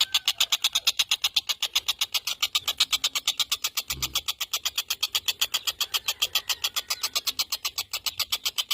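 Tengkek buto kingfisher calling in a continuous fast rattle of high, sharp notes, about eight a second. A brief low thump comes about four seconds in.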